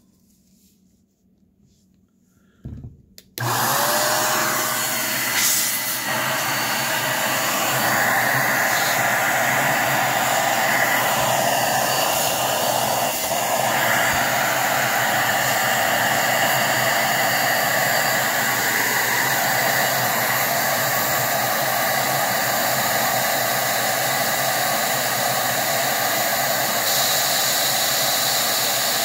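Electric DataVac duster switched on about three seconds in, after a couple of soft clicks. Its motor spins up with a short rising whine, then blows a steady, loud rush of hot air.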